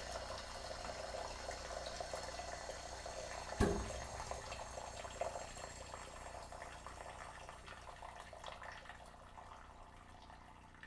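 Water running and trickling in a hydrostatic test machine as the cylinder's test pressure is relieved, slowly fading away. A single sharp knock sounds about three and a half seconds in.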